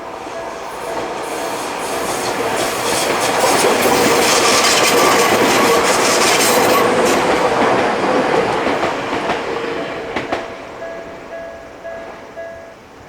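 A Tokyu Oimachi Line train passing over a level crossing, growing louder to a peak midway and then fading, with wheel clatter over the rail joints. The crossing's warning bell rings in a rapid repeating pattern of the newer Tokyu tone type. It is drowned out while the train is loudest, comes back as the train recedes, and stops near the end.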